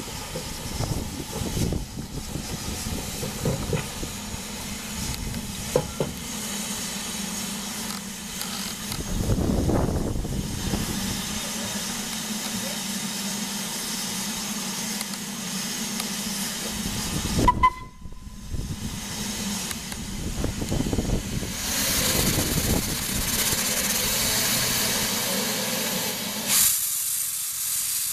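LMS Black Five steam locomotive 45305 moving slowly, with loud hissing from its open cylinder drain cocks and exhaust beats. There is a brief loud blip a little past the middle, and the hiss grows louder near the end as the engine draws level.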